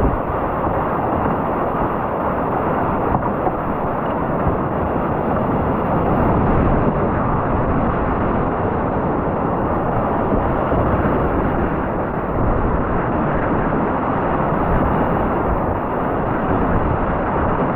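Steady rushing of whitewater rapids on a steep creek.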